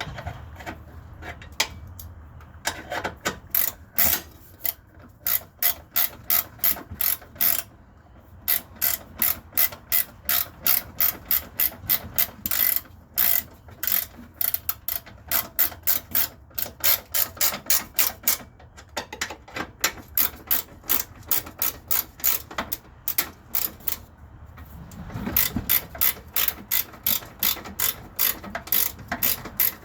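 Hand ratchet wrench clicking as bolts are turned on a Honda Civic engine mount, in long runs of quick, even clicks broken by a few short pauses.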